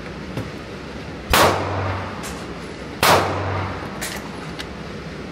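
Two gunshots about 1.7 seconds apart, the first about a second and a half in, each ringing briefly off the walls of an indoor range.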